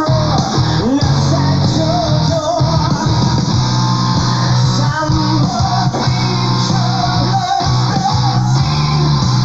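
Power prog metal song playing: sung vocals over electric guitars and a full rock band.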